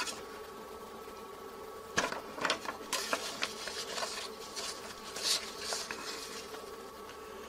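Printed paper sheets rustling and crackling as pages are turned and handled, a few short crisp bursts over a steady faint background hum. The sharpest crackle comes about two seconds in.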